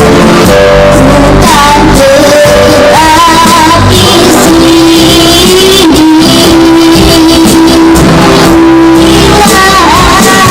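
Loud music: a primary-school pupil singing solo over backing music with guitar, holding long notes.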